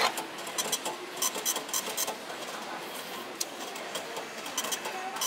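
Postage label vending machine making a sharp clack, then several short runs of rapid clicking and rattling.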